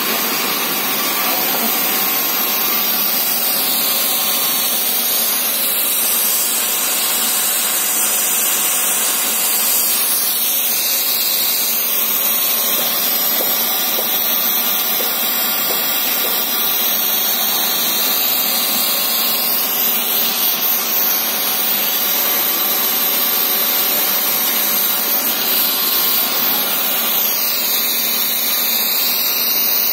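HDPE pipe extrusion line running: a steady, even machinery noise with a few faint steady tones.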